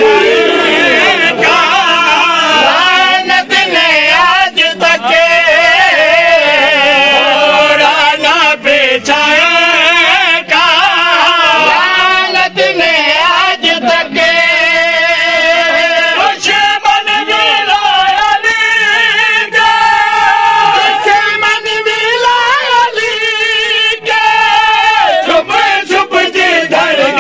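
A man singing a devotional qasida through a microphone. He draws out long, wavering, ornamented notes in phrases a second or more long, with short breaks between them.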